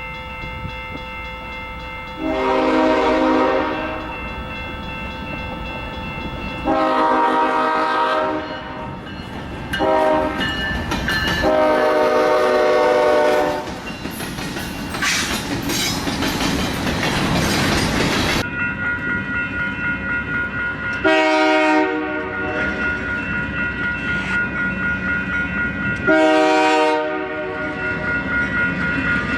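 Locomotive air horn sounding a chord in four blasts, long, long, short, long, the grade-crossing signal. The train then passes close with a loud rush, its wheels clacking rhythmically over the rail joints, and the horn sounds two more short blasts near the end.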